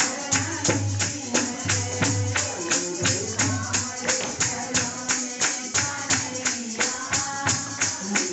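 Devotional kirtan: a woman singing a bhajan into a microphone over a steady beat of jingling percussion and hand clapping, about three to four strokes a second.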